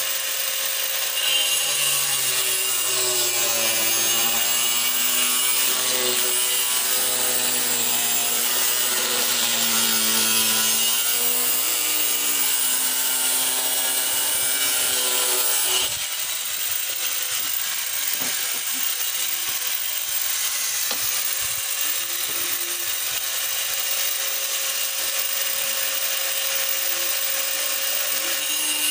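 Handheld electric angle grinder running continuously and cutting, its motor pitch wavering as the load changes; the sound shifts abruptly about halfway through.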